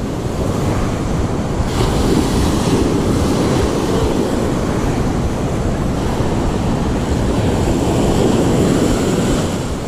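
Surf washing up and draining back over the sand close by, with wind buffeting the microphone as a low rumble.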